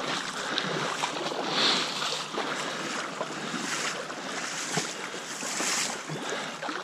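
Shallow river water sloshing and lapping with a steady rush, mixed with wind noise on the microphone, rising and falling in soft swells with a few faint ticks.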